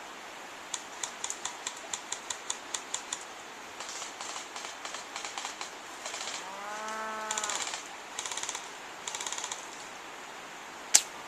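Airsoft guns firing: a string of single shots at about five a second, then several short rapid bursts. A long drawn-out call rises and falls about halfway through, and one loud sharp crack comes near the end.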